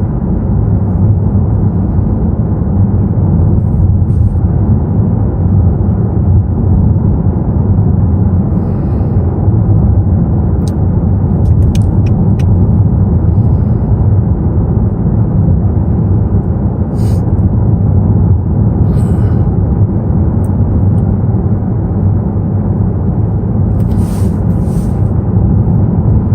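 Steady low rumble of road and traffic noise heard from inside a car driving through a highway tunnel, with a few short higher hisses and clicks now and then.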